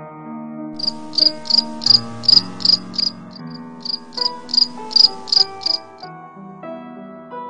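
Cricket chirping in an even pulse of about three chirps a second; it starts about a second in and stops about six seconds in. Soft background music with long held notes runs underneath.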